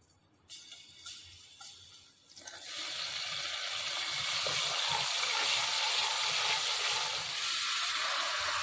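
Hot oil in a wok sizzling as a dark sauce hits it: a few quiet clicks, then a loud, steady sizzle from about two and a half seconds in.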